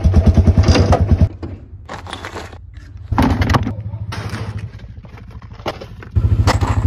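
Quad bike engine running with a fast, even pulse, cut off abruptly after about a second. Then a few short, separate bursts of handling noise, with a similar engine pulse back briefly near the end.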